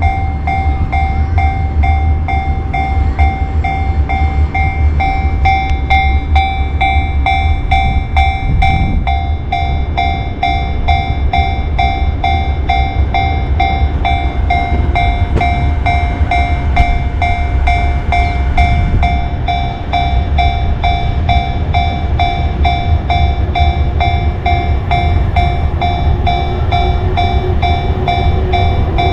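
Japanese railway level-crossing alarm ringing its steady, rapidly repeating electronic bell while a train passes with a low rumble. A run of sharp clacks from the wheels comes about a quarter of the way in.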